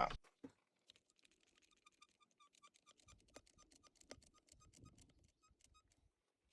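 Faint, rapid, evenly spaced ticking, about five ticks a second, with faint low handling rumble in the middle.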